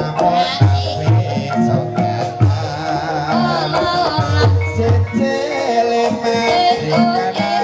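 Javanese gamelan music accompanying an ebeg hobby-horse dance: repeated low kendang drum strokes under sustained ringing metallophone tones, with a wavering melody line above and sharp rattling percussion strokes, denser in the second half.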